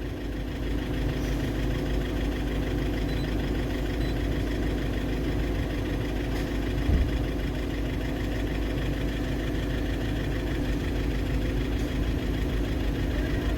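Volkswagen Vento diesel engine idling with the tractor-like clatter of injector knock, which the mechanic puts down to the injectors.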